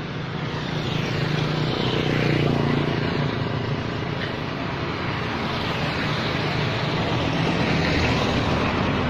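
Road traffic passing close: engine and tyre noise that swells about two seconds in and again near the end, as a van goes by.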